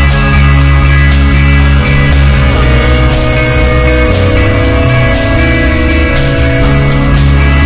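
Loud rock music with guitar, heavy bass and a steady drum beat.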